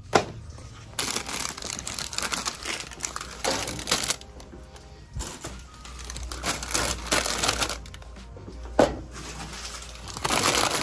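Plastic snack bags crinkling in bursts as they are handled and loaded into a vending machine's spiral rows, with two sharp knocks, one right at the start and one about nine seconds in.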